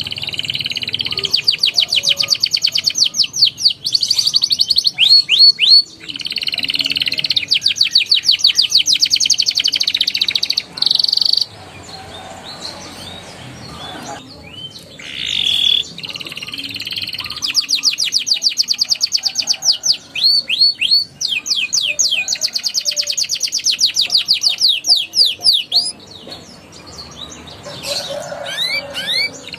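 Young domestic canary singing: long fast rolls and trills of rapidly repeated high notes, broken by two short pauses.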